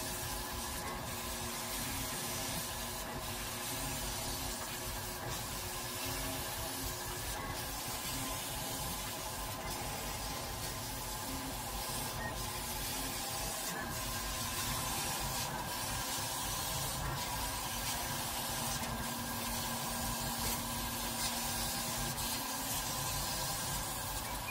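Laser cutting machine at work, a steady hiss and machine hum with a few faint steady whining tones as the head traces the cuts; a low tone joins for a few seconds near the end.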